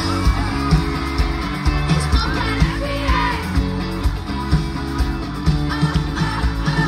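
Live pop-rock band playing loudly through a concert PA, with a steady drum beat, bass and guitar, and singing at times.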